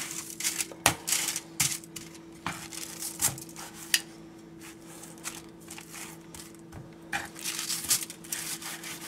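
Metal kitchen tongs clicking and tapping against a foil-lined tray as raw chicken breasts are turned over, with light crinkling of the foil. A steady low hum runs underneath.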